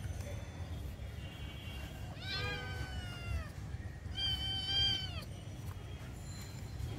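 Kitten meowing twice, each call about a second long, the first sliding down in pitch, over a low steady rumble.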